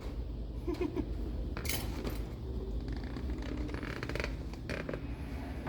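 Scattered light clicks and taps of hand work on a car door's vent-window hardware, with one sharper scrape or rattle about a second and a half in, over a steady low hum.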